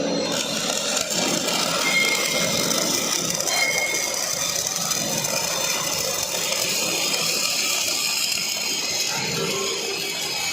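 MIG welding arc, a steady crackling hiss with no break.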